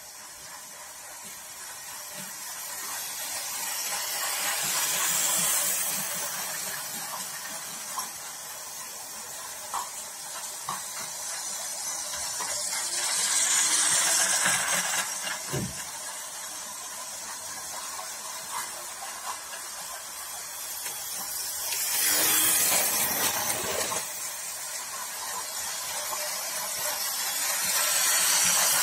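Model trains running on plastic track laid on a hard floor: a steady rolling whirr that swells four times as trains pass close by and fades as they move away, with light clicking over the rail joints.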